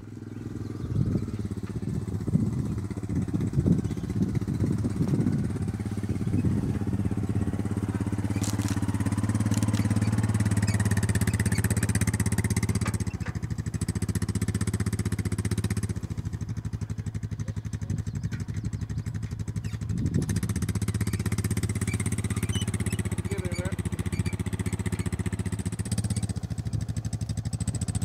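ATV (four-wheeler) engine running steadily under a light load, towing a small trailer, its note and level shifting a little a few times.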